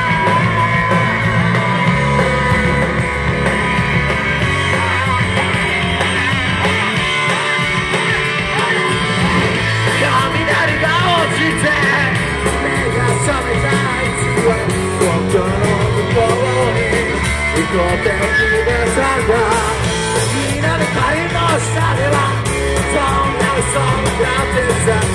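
Live rock band playing loudly, electric guitar over a steady bass and drum beat, with a singer's voice over the band from about ten seconds in.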